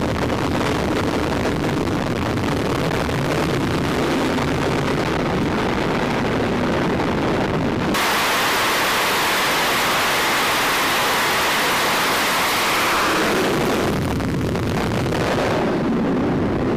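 Jet engines running on an aircraft carrier's flight deck as a steady low rumble, then about halfway through a much brighter, hissing noise of a jet at full power on the catapult, which falls away a few seconds later as the jet is launched.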